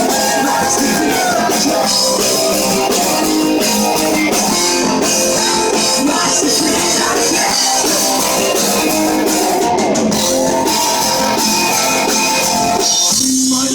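Live rock band playing an instrumental passage: electric guitar lines with a few sliding notes over a steady drum kit beat.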